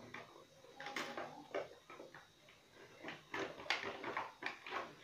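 Clear plastic toy packaging crinkling and crackling in the hands in a run of short, irregular crackles as a toy is packed back into it.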